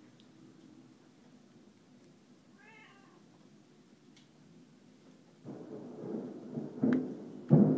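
Thunder: a low rumble sets in suddenly about five and a half seconds in and grows, with two sharp cracks close together near the end. Before it, a faint short pitched call about three seconds in.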